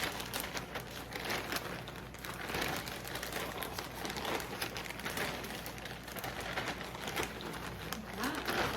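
Zip-top plastic bag being shaken, with chocolate-coated corn cereal squares and powdered sugar tumbling inside and the plastic crinkling: a continuous rustling run of quick shakes.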